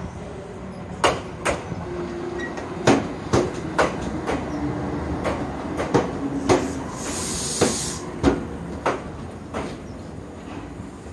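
Ryutetsu 5000 series electric train running into a station platform: its wheels clack over rail joints in pairs as each bogie passes, with short brake squeals. A burst of air hiss comes about seven seconds in.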